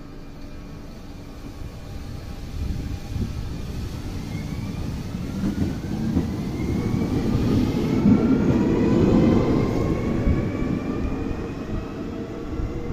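Alstom Régiolis regional train pulling away from the platform: a low rumble builds as the carriages pass and peaks after about eight seconds, while the traction motors' whine rises steadily in pitch as the train gathers speed.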